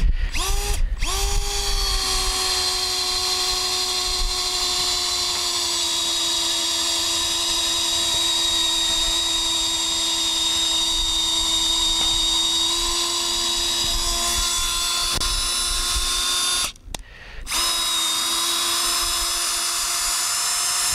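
Power drill with a long bit boring into a wooden fence post and rail: the motor spins up in two short starts, then runs steadily under load. It stops briefly about three-quarters of the way through, then starts again and runs until near the end.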